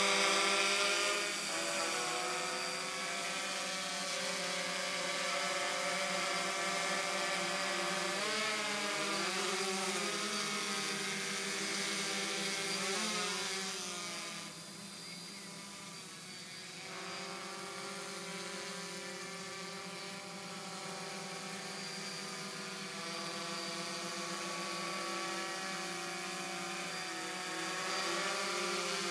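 DJI F550 hexacopter's six motors and propellers humming in hover, a set of steady tones. Twice partway through the pitches waver up and down as the motor speeds change, and the sound drops a little for a few seconds in the middle.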